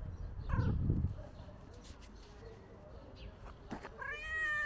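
Tuxedo cat meowing: a short, falling meow about half a second in, over a low rumble, then a longer, louder meow near the end.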